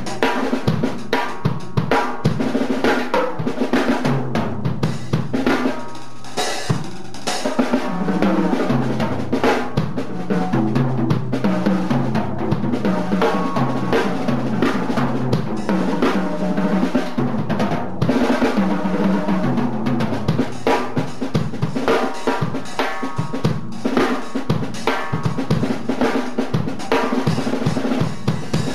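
Acoustic drum kit played solo: fast rolls and fills around the Evans-headed toms and snare, with bass drum strokes under them and the toms ringing on.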